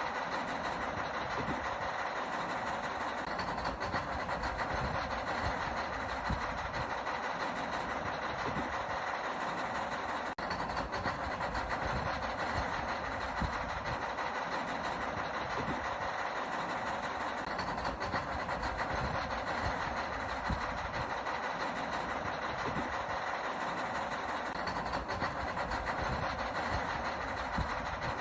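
Small electric motors and plastic gearboxes of toy RC construction machines, whirring and rattling steadily as they work.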